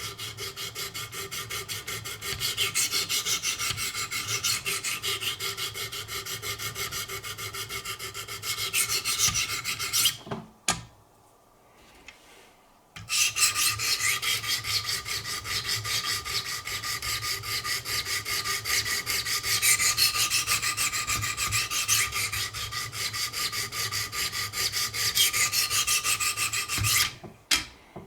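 Wicked Edge guided-rod sharpening stones stroked quickly and evenly along a knife's edge, a steady rhythmic rasping. The strokes stop about ten seconds in for nearly three seconds, then resume.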